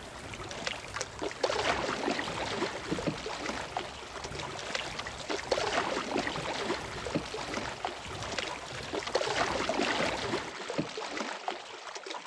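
Choppy lake water lapping and splashing against a canoe paddled through wind-driven waves, with wind rumbling on the microphone.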